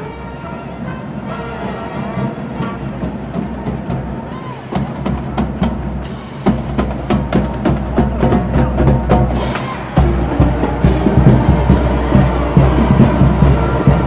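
High school marching band playing, led by its drums with a dense run of percussion strikes. The band grows steadily louder and fuller, with a jump in volume about ten seconds in.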